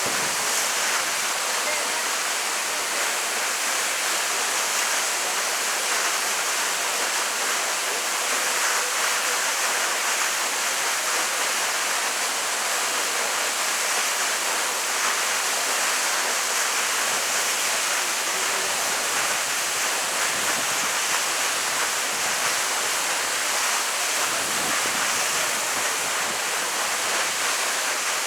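Waterfall: water falling and splashing in a steady, even rush with little low rumble.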